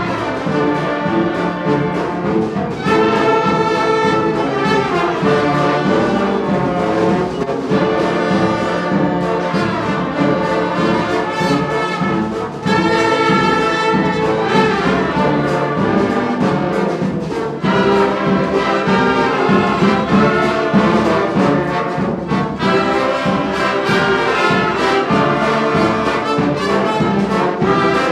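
A student ensemble playing a piece, with brass instruments prominent, the music going on without a break.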